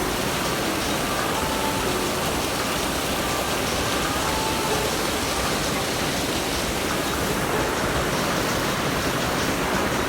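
A steady rushing noise with no breaks, faint short tones showing through it now and then.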